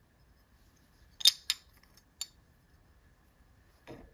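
Small electronics parts being handled as a circuit board is pulled out of a finned aluminium heatsink housing: three sharp clicks of board and metal parts about a second in, the first the loudest, then a duller knock near the end.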